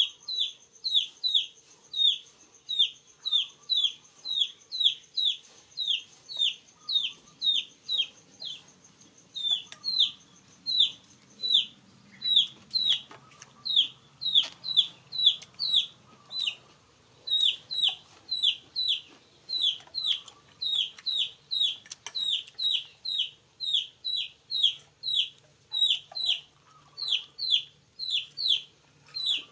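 A chick peeping over and over, about two peeps a second, each a short call that falls in pitch. A faint steady high whine runs underneath.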